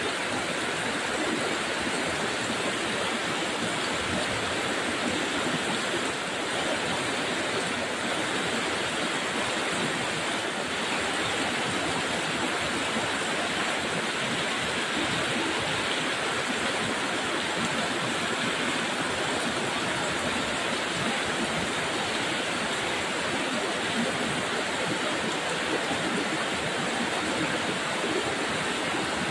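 Muddy landslide floodwater rushing down a road in a fast torrent over mud and debris: a steady, unbroken rush of water.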